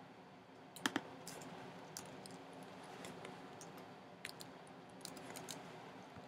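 Faint computer keyboard typing: scattered key taps, with a sharper pair of clicks about a second in.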